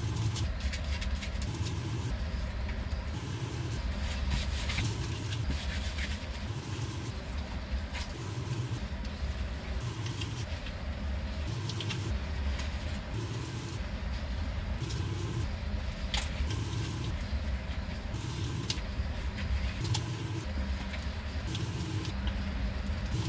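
A steady low machine hum that swells and fades every second or so, with scattered sharp clicks and taps.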